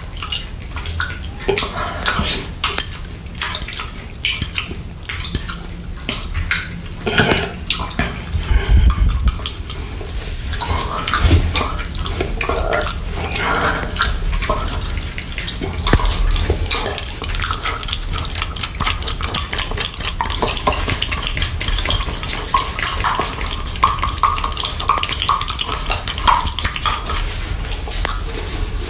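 Close-miked wet mouth sounds: licking, lip smacking and tongue clicks as the mouth works at a clear plastic cup, a dense, uneven run of small moist clicks and smacks.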